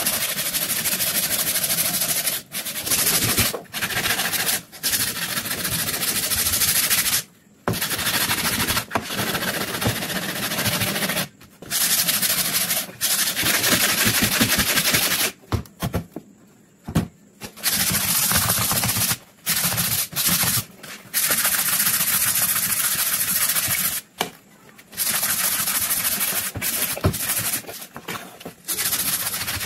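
Sandpaper rasping back and forth by hand along a wooden rifle stock, in quick strokes that run in long stretches with a few short pauses. The sanding is stripping the old dark finish down to bare wood.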